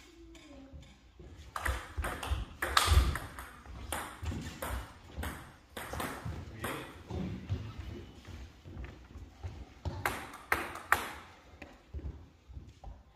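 Table tennis ball clicking off the bats and bouncing on the table in a rally: a quick run of sharp hits for a couple of seconds, scattered clicks after that, and another loud cluster of hits about ten seconds in.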